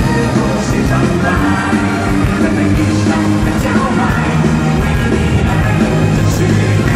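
Loud live pop-rock band music played through an arena sound system, with singing.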